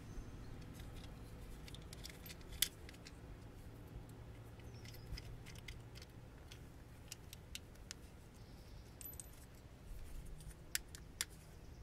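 Faint handling noise of stripped wires being worked through a solenoid's plastic DIN connector housing: scattered small clicks and rustles, with a sharper click about two and a half seconds in and a few more near the end.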